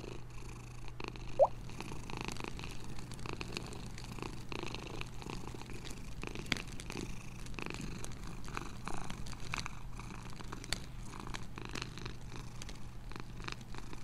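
Recorded cat purring as a steady low rumble, mixed with scattered crackles of a recorded wood fire. About a second and a half in, a short rising bubble-pop sound plays as a bubble-shaped button is tapped.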